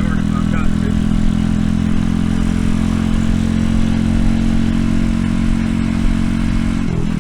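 The RPS Racer 140 pit bike's single-cylinder four-stroke engine runs at steady revs through a stainless side-exit exhaust. The revs dip briefly near the end.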